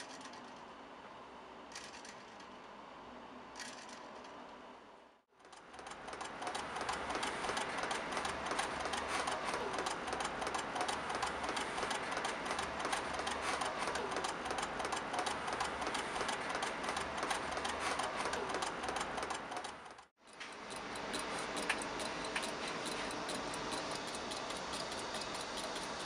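Quiet for the first few seconds. Then a small 3D-printed balance-wheel motor driven by a hard-disk voice coil, self-oscillating through its copper contacts, sets up a fast, even clicking chatter. After a short break about 20 s in, a second such motor takes over with the same rapid clicking; its hand-wound coil pulls a steel rod toward a magnet each time the contact closes.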